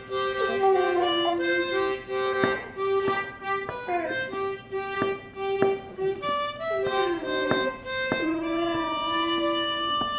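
Harmonica playing a blues riff, held chords with bent notes that slide in pitch. From about two seconds in, sharp taps keep time roughly every half second.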